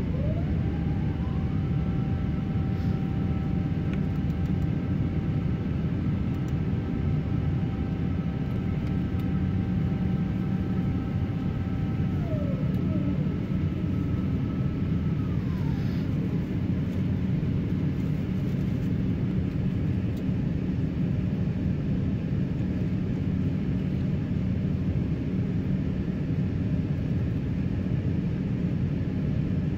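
Airbus A350-900 cabin noise during the climb: the steady rumble of its Rolls-Royce Trent XWB engines and airflow. Over it, a mechanical whine of two pitches rises about a second in, holds, and falls away between about twelve and sixteen seconds in.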